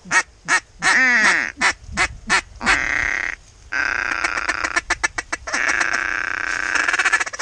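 Mallard duck call blown hard: a string of quacks, then long drawn-out calls and fast chattering, with a short break partway through. It is calling to ducks circling overhead.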